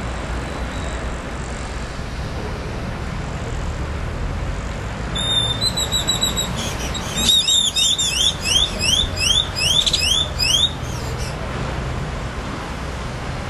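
Car alarm sounding about midway: a steady high electronic tone for a second or so, then a run of quick identical rising whoops, about three a second, that stops a few seconds before the end. Wind rumbles on the microphone throughout.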